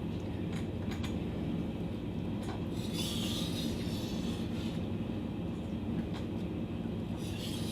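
Katana blade being stroked across a Shapton Kuromaku water stone, a steady rubbing scrape, with brighter scraping strokes about three seconds in and again near the end. The strokes are grinding out a rolled edge on the blade.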